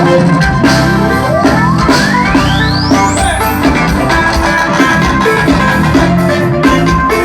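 Forró band music playing loud with a steady beat, with a single tone sweeping steadily upward in pitch from about a second in to about halfway through.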